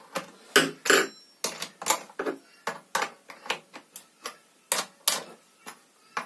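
Combination wrench clinking on the guide-bar nut of a Stihl MS 170 chainsaw as the nut is turned in short strokes and the wrench refitted, tightening the bar against the chain tension. A run of sharp metal clicks, uneven, about two to four a second.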